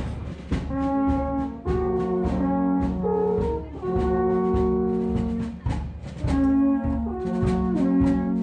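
Several alphorns playing together: long held notes in harmony, their pitches changing every second or so.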